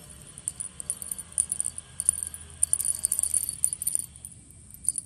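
Light jingling and clicking of a beaded feather wand toy against a wire pen as a serval kitten bats at it, in quick clusters for about three seconds before it eases off.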